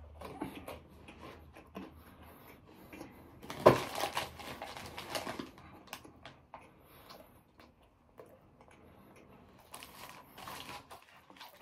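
Close-miked eating: chewing and mouth clicks, with a sharp crackling burst about four seconds in and more crackling around ten seconds.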